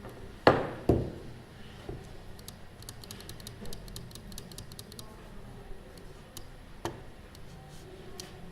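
Small office ambience: two knocks about half a second apart near the start, then a short run of light keyboard typing, and another knock about seven seconds in, over steady room tone.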